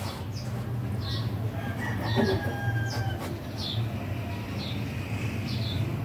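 Rooster crowing about two seconds in, among short high bird chirps repeating about once a second, over a steady low hum.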